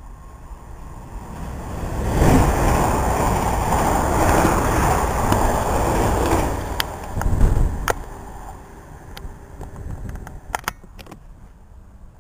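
South West Trains Siemens Desiro electric multiple unit passing through the station at speed: a rushing rumble that builds over the first two seconds, stays loud for about six seconds, then fades away, with a few sharp clicks near the end.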